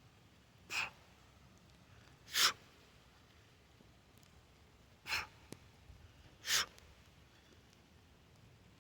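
A lifter breathing hard during double kettlebell reps, with four short, sharp exhalations. The first two and the last two come about a second and a half apart, with a longer gap between the pairs.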